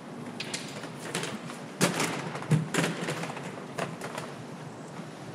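Fixed-gear bicycle knocking and rattling over bumps, the two loudest knocks about two seconds in and just under a second apart, over a steady rushing noise.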